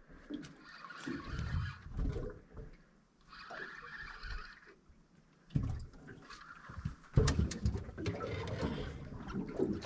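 Fishing reel buzzing in two short spells as a hooked fish is fought, with low rumbles and a few sharp clicks later on.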